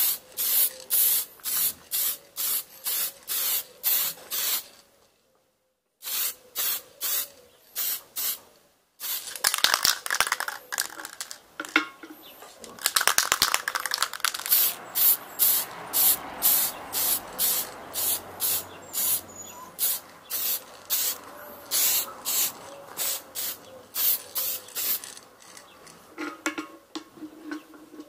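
Hand-held sprayer hissing in repeated short bursts, about two a second, as it mists a wooden hammer handle, with two brief breaks early on and a denser run of spraying in the middle.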